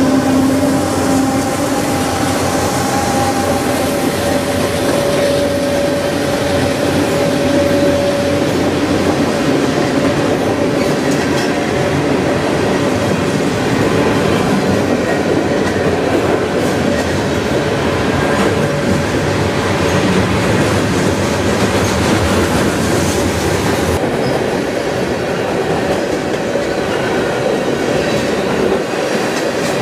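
Union Pacific freight train passing close by. For the first several seconds the diesel locomotives' engines drone steadily, then fade. After that, hopper cars, flatcars and boxcars roll past with a steady rumble and wheel clatter on the rails.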